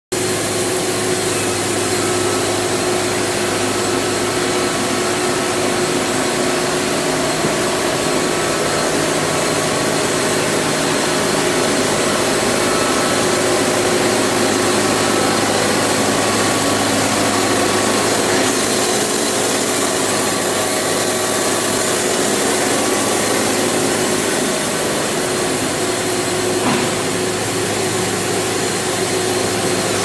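Wood-Mizer LT70 Wide band sawmill running steadily as its band blade saws through a squared cant, a loud even machine noise with a steady hum underneath.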